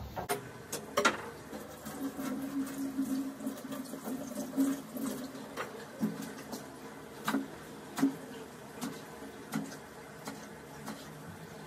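Kitchen knife chopping greens on a wooden cutting board: irregular sharp knocks, roughly one every half second to a second, over a faint steady background hiss.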